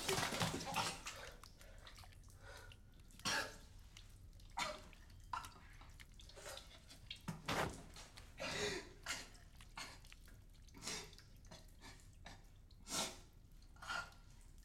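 Scattered faint sniffs, sobbing breaths and water drips in a tiled shower room with an echo, after a brief louder scuffle at the very start.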